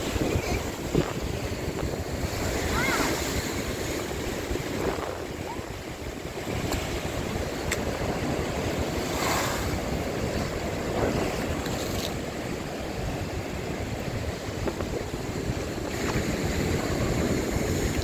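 Heavy cyclone swell breaking and washing over rocks on the shore: a continuous rush of surf that surges louder every few seconds as each set of waves comes in.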